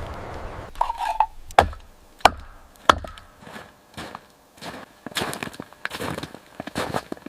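A series of sharp knocks, wood-like, spaced about half a second to a second apart, followed by a denser run of crackling clicks.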